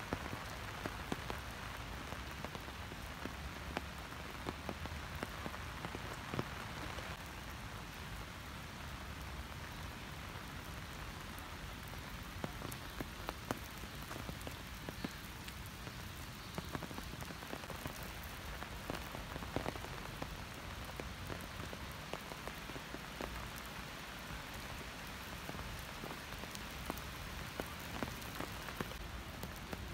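Steady rain falling, an even hiss dotted with many sharp ticks of individual raindrops striking close by.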